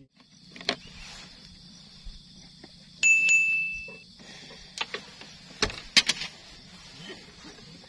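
A single bright ding, starting sharply about three seconds in and ringing for about a second, over a faint steady low hum, with a few scattered sharp clicks.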